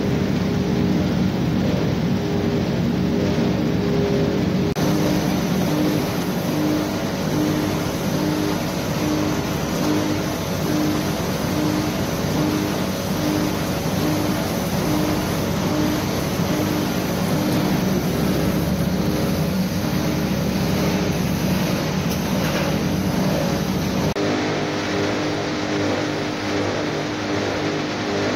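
CRL800 copper wire granulator line running, its vibrating separator table sorting copper granules: a loud, steady mechanical drone with a regularly pulsing hum. The sound changes character about five seconds in and again near the end.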